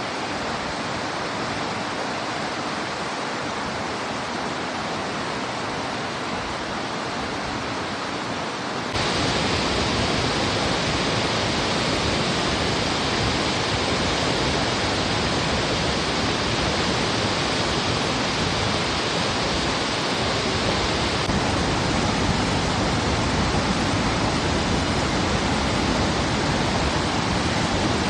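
River water rushing below a waterfall, a steady wash of noise that turns suddenly louder and deeper about nine seconds in.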